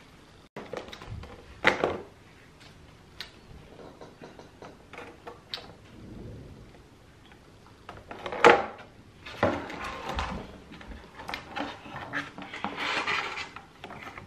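Sounds of a meal being eaten: scattered clicks and knocks of cutlery and dishes, with a louder knock about two seconds in and another about eight and a half seconds in, and a longer noisy stretch near the end.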